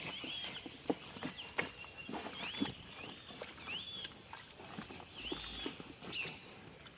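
An animal giving short, high, arched calls that rise and fall, about one a second, with scattered clicks and knocks around them.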